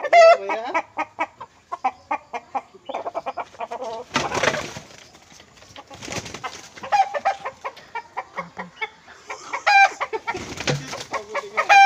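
Two roosters fighting, with frequent short clucks and squawks. Bursts of wing flapping come about four seconds in and again around six seconds.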